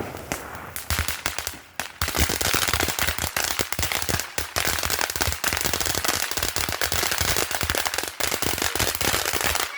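Long-running firework going off in a dense, rapid volley of small bangs and crackles, many a second without a break, then stopping abruptly near the end.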